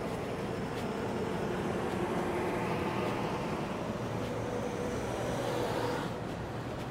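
City street traffic: a steady wash of vehicle noise with a faint engine tone in it, growing louder over the first few seconds and dropping off about six seconds in.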